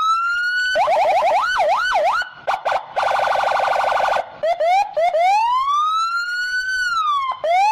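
Electronic police siren cycling through several patterns: a rising wail, quick up-and-down swoops, a rapid warbling trill, short chirps, then a long slow rise and fall that starts rising again near the end.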